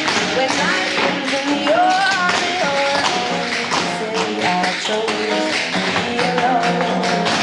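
Tap shoes of a small group of dancers clicking rapidly on the floor, over a recorded soul-pop song with a woman singing.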